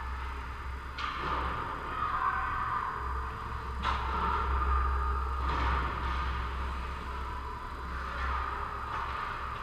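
Ice hockey rink during play at the far end: skates scraping the ice and a couple of sharp stick-and-puck knocks, about a second in and just before four seconds, ringing in the hall, over a steady low hum.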